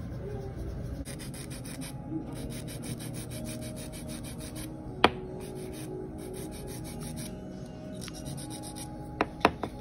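Hand nail file rasping over acrylic nails in quick back-and-forth strokes, in short runs with brief pauses. There is one sharp click about halfway through, and three more near the end.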